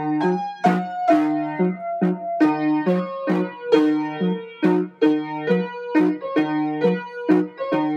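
Background music: a keyboard playing a bouncy, steady rhythm of repeated chords with a melody above.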